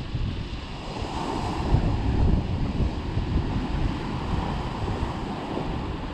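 Surf breaking and washing over a rocky shoreline, swelling about a second in, with wind buffeting the microphone.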